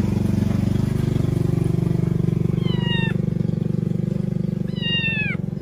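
A small engine running steadily at one speed, with a fast even pulse. Over it, a kitten meows twice, about two seconds apart: two falling cries, the second one longer and louder.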